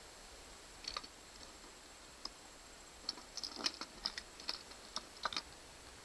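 Light clicks and taps from handling the opened plastic case of a handheld trolling-motor remote and multimeter test probes. There is a pair of clicks about a second in, then a quick scattering of them from about three to five and a half seconds in.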